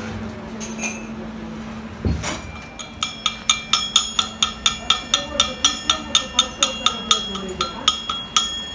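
Chipping hammer striking fresh weld beads on a steel excavator boom pin, about four quick metallic blows a second with the pin ringing after each, knocking off the welding slag. A single heavy knock comes just before the run of strikes begins.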